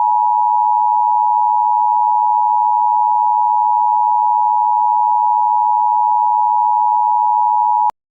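Emergency Alert System attention signal: a steady two-note tone held for about eight seconds, then cut off abruptly. It signals that an emergency announcement is about to follow.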